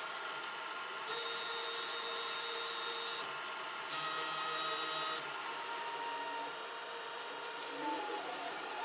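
3D printer stepper motors whining through auto bed levelling moves, in separate runs at fixed pitches. One run lasts about two seconds starting a second in. A louder, higher-pitched one follows about four seconds in, and fainter moves come near the end.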